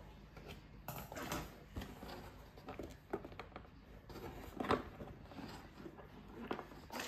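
Faint, scattered rustles and small clicks of a cardboard-and-plastic toy box being handled as the ties holding the toys to the backing card are worked loose, one click a little louder about halfway through.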